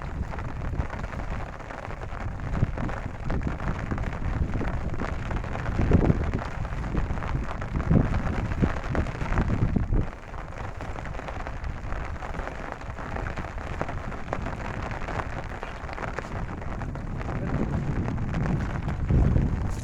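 Steady rain falling, with low gusts of wind buffeting the microphone now and then.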